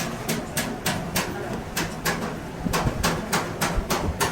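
Rapid, evenly spaced hammer blows, about three or four a second, with a low hum underneath.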